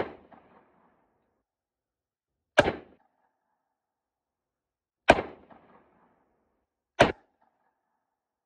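.38 Special revolver fired four times at a slow, even pace, about two to two and a half seconds apart. Each shot is a sharp crack followed by a short echo.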